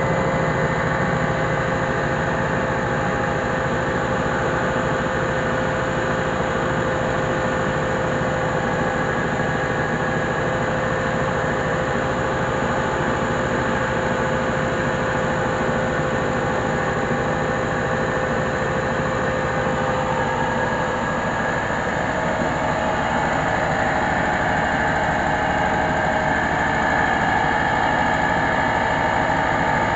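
Mobile rice huller running steadily, its single-cylinder diesel engine driving the hulling machinery by belts while paddy is fed through and milled.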